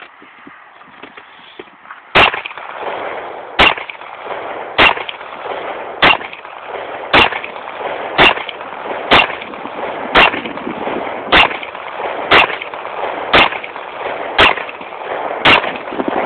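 Springfield XD 45 Tactical pistol firing a magazine of reloaded .45 ACP ball target rounds: thirteen shots at a steady pace of about one a second, starting about two seconds in, each followed by a short echo.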